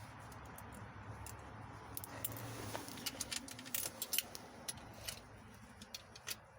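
Irregular light metallic clicks and clinks of hand tools and hardware being handled while a carburetor is fitted onto its intake manifold.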